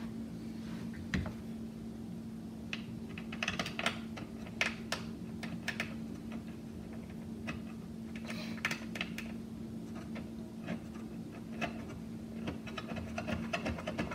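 Scattered small clicks and taps, coming in short clusters, of metal parts being handled as a wall light fixture is fitted onto its mounting bracket, with a steady low hum underneath.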